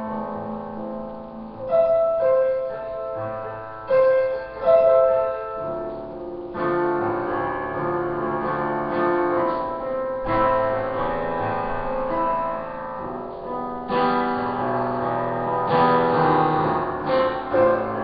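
Solo piano playing slow, sustained chords, a new chord struck every couple of seconds and left to ring.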